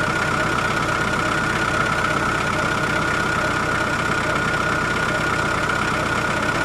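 A small motor running steadily, a fast even buzz with a steady high whine over it, starting and stopping abruptly.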